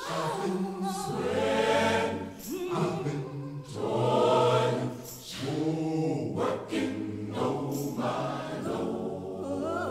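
Choir singing in slow phrases of long held notes that swell and fade.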